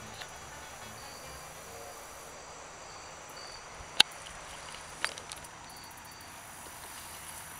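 Steady outdoor background hiss with a few faint, short high chirps. A sharp click about four seconds in, the loudest thing here, and a smaller one a second later.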